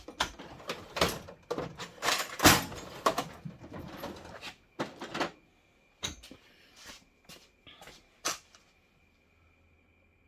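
Irregular knocks, clicks and rattles of tools and hard parts being handled, loudest in the first few seconds and thinning out until they stop about eight and a half seconds in.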